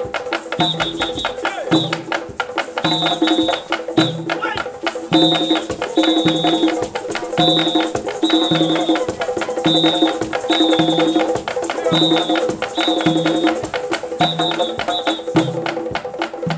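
African-style hand-drum ensemble playing a fast, steady rhythm on tall hand drums, with a phrase of low and high notes that repeats about once a second.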